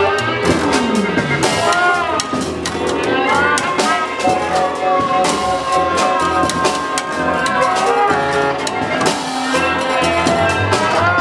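Large mixed ensemble playing live experimental music: drum kit, saxophones, trumpet, trombone, electric guitar and accordion together. Many notes bend up and down in arches over scattered drum hits, and a low note slides down about half a second in.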